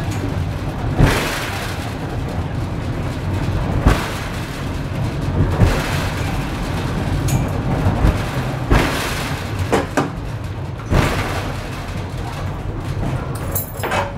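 A funicular car dating from 1900 running down its rails: a steady rumble with irregular knocks and thumps every second or two.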